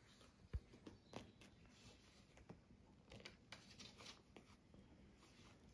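Near silence with faint rustling and scratching of puppies shifting on fleece and cloth bedding, and one soft low thump about half a second in.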